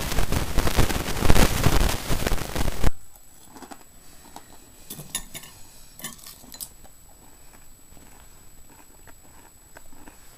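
Loud rushing noise that cuts off abruptly about three seconds in, then a metal spoon clinking a few times against a ceramic cereal bowl.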